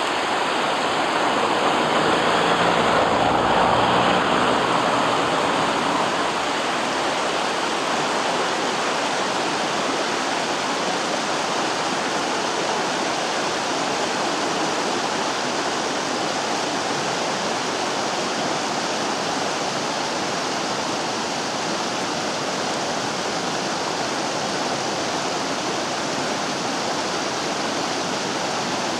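The Vydra, a rocky mountain river, rushing over its stones: a steady, dense rush of water, a little louder in the first few seconds.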